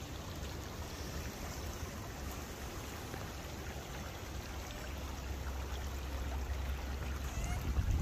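Creek water running steadily over a shallow, stony bed, heard as an even hiss, with a low rumble of wind on the microphone that grows stronger in the second half.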